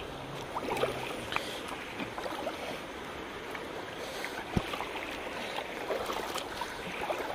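Feet wading through shallow stream water, sloshing and splashing, with a few small knocks over a steady watery hiss.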